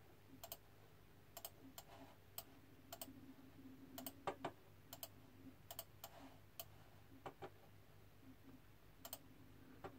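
Faint computer mouse clicks, about fifteen at irregular spacing, as points of a route are clicked onto a digital map with a path-drawing tool, over a faint low hum.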